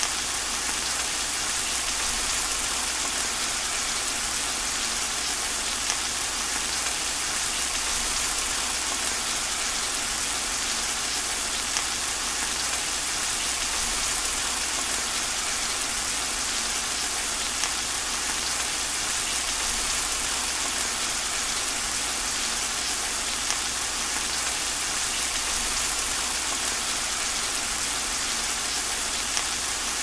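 Steady rain falling: an even, dense hiss of drops with no letup, and a few sharper drop ticks several seconds apart.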